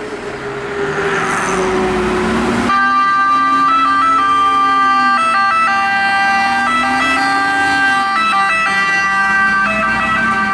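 Fire engine siren switched on about three seconds in, sounding steady tones that shift in pitch now and then, over the diesel engine of a MAN aerial ladder truck pulling away, its low engine note rising and falling with the throttle.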